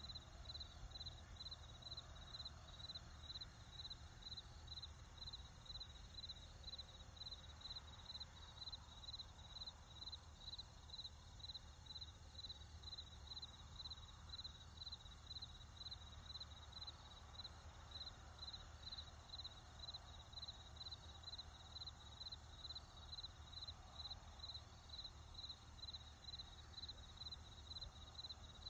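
Crickets chirping in a steady, even rhythm, a high-pitched pulse about twice a second, over a faint low rumble of distant traffic.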